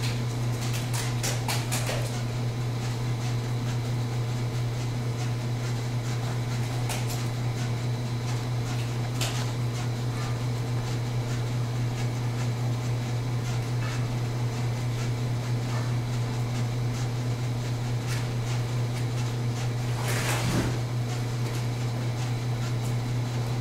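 A steady low mechanical hum, like a fan or electrical hum, with a few faint clicks in the first couple of seconds and a short burst of rustling noise about twenty seconds in.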